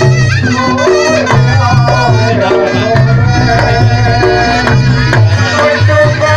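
Reog Ponorogo gamelan music played live: a wavering, reedy melody line over fast hand-drum strokes and repeated low pitched gong tones.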